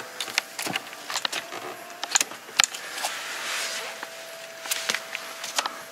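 Scattered clicks, taps and light rattles of hands handling fittings in a car's interior, with a faint steady tone in the second half.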